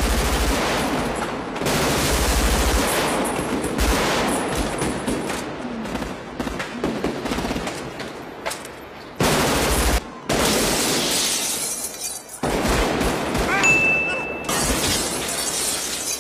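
Sustained automatic rifle fire from 5.56 mm Colt Model 733 carbines and other rifles in rapid, near-continuous bursts, the shots echoing, with a few brief lulls. A short high-pitched tone sounds about three-quarters of the way through.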